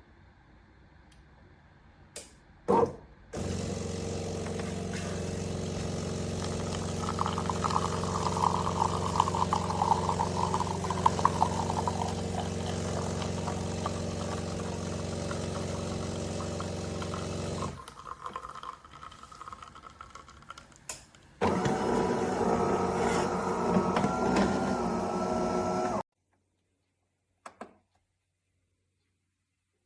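De'Longhi Magnifica S automatic espresso machine running through a brew cycle. A click and a thud come first, then a steady motor hum for about fourteen seconds with a crackling stretch in the middle. After a short lull there is a second stretch of running with a higher whine, which stops abruptly.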